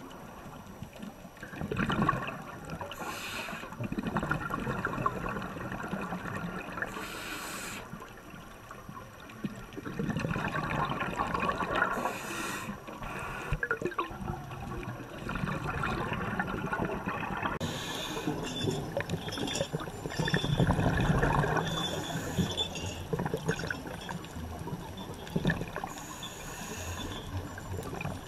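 Underwater bubbling and gurgling from scuba divers' exhaled air, coming in surges that swell and fade every few seconds, with short hisses in the first half.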